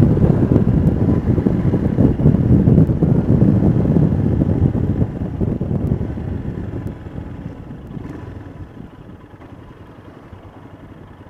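Ride noise from a Royal Enfield Himalayan's 411 cc single-cylinder engine under way, mixed with wind rushing past: a dense low rumble that dies down to a much quieter level about two-thirds of the way through.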